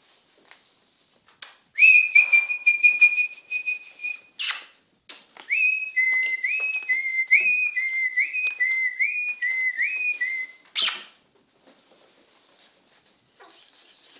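A person whistling: one long held note, then a run of about ten short notes, each sliding up to a higher pitch. A few sharp knocks fall between and after the whistling.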